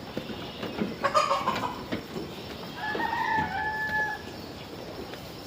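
A rooster crowing: a drawn-out call that ends on one steady held note for about a second and a half.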